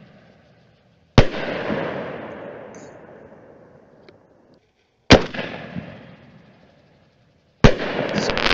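Aerial canister shell fireworks from a TNT NX Level reloadable kit bursting: three loud bangs about four seconds apart, each fading away slowly. The last burst is followed by rapid crackling.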